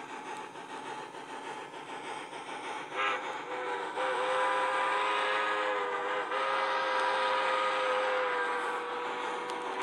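TCS WOW Sound decoder in a model B&O 0-10-0 steam locomotive playing its steam whistle through the loco's small speaker. A short toot comes about three seconds in, then a long whistle is held for about five seconds with a brief break midway, over the steady hiss of the decoder's running sound.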